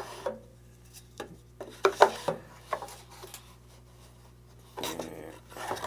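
Wooden workpieces and a table saw jig being handled: scattered light knocks and clicks as pieces are picked up and set in place, with a sliding rub near the end.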